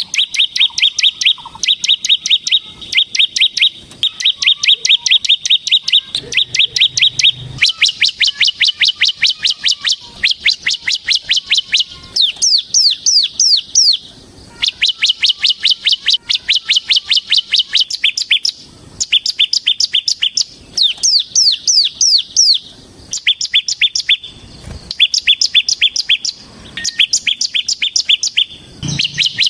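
Bar-winged prinia (ciblek) singing in the fast 'ngebren' style: long rattling runs of rapid repeated high notes, a few seconds each, broken by short pauses. Some runs switch to quick falling notes.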